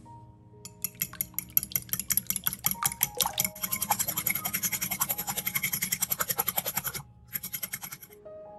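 Metal fork rapidly whisking raw eggs in a glass bowl, a fast run of clicks and scrapes against the glass, with a short break near the end before a brief last burst.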